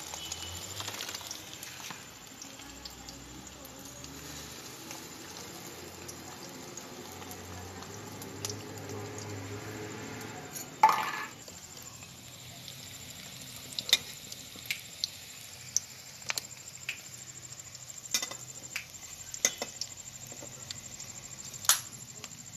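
Fish-roe fritters deep-frying in hot oil in a steel kadai: steady sizzling, with one sudden loud burst about eleven seconds in. In the second half a steel spatula clinks against the pan again and again as the fritters are turned.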